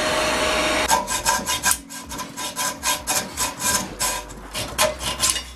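Loose hacksaw blade, free of its frame, sawing by hand through the steel sleeve of an old trailing-arm bushing to cut it out. The strokes come about three a second, after about a second of loud continuous noise at the start.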